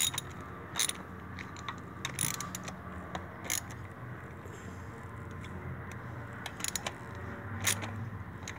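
Hand ratchet clicking in short, irregular runs while tightening the retaining nuts of a locking hub, worked side to side in a cross pattern to seat the hub's O-ring evenly.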